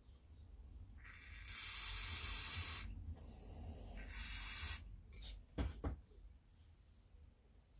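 Aerosol brake cleaner sprayed onto a brake master cylinder body in two long hissing bursts of about two seconds each, then a few short knocks.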